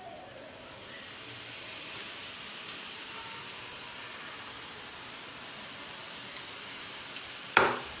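Gram-flour sev (omapodi) strands frying in hot oil, a steady sizzle that builds over the first second as the dough is pressed in. Near the end a sharp knock stands out above the sizzle.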